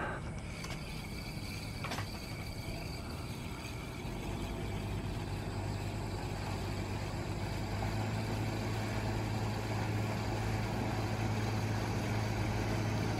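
An engine running with a steady low hum that grows louder about four seconds in and again near eight seconds.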